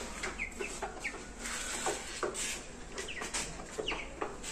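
Brahma chickens and chicks calling in the coop: a scattered run of short calls falling in pitch, several a second.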